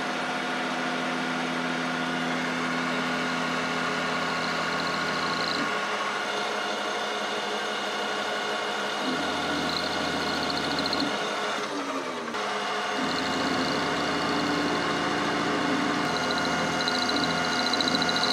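Metal lathe running with a steady whine made of several tones while a carbide insert chamfers the end of a stainless steel bolt. The low tones change a few times, and the sound dips briefly about twelve seconds in.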